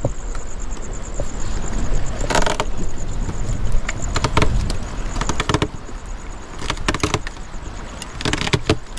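Fishing reel's drag giving out in several short rattling bursts as a fish pulls on the line, over a steady low rumble.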